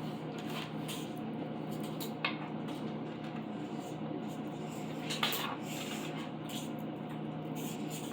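A few scattered clicks and clinks of small metal screws and parts being handled, the clearest about two seconds in and about five seconds in, over a steady low hum.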